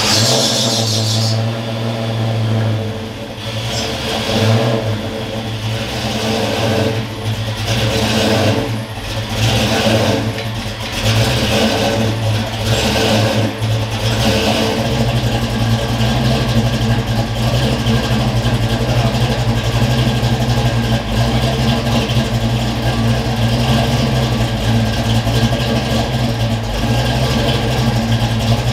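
1993 Ford Mustang GT's 5.0-litre V8 running on its first start on a newly installed Holley Terminator X fuel injection. It runs unevenly, its revs rising and falling, for about the first fourteen seconds, then settles into a steady idle.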